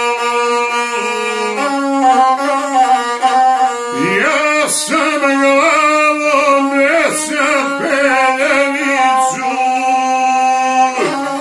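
Single-string gusle bowed in a short, steady melodic line, then a man's voice comes in about four seconds in, singing epic verse with heavily wavering, ornamented pitch over the droning gusle.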